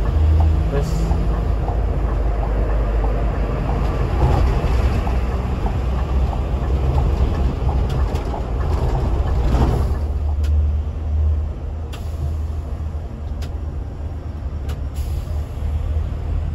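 Scania K360 coach running on the highway, heard from aboard: a steady low engine drone with road and tyre noise. The noise swells a little past halfway and then settles lower, with a few light clicks.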